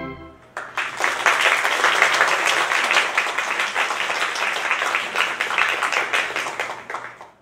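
Theatre audience applauding as the orchestral music ends: the last note fades just as the clapping breaks out about half a second in, and the applause holds steady, then fades and cuts off suddenly at the end.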